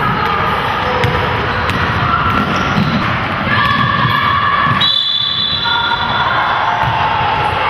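Basketball dribbled and thudding on a hardwood gym court during play, with held tones above it that change pitch every second or so. The sound cuts briefly about five seconds in.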